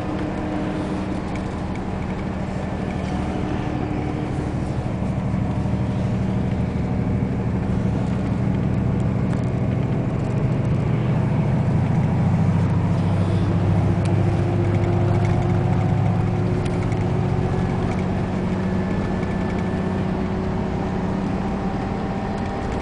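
Bus engine and road noise heard inside the passenger cabin: a steady low drone that swells a little in the middle.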